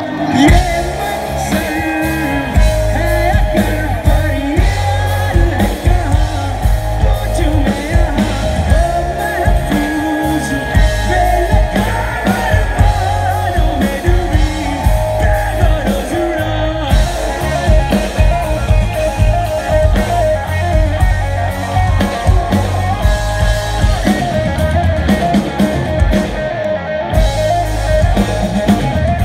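Live rock band playing a song: a lead vocal sung over acoustic guitar, electric guitar and a drum kit.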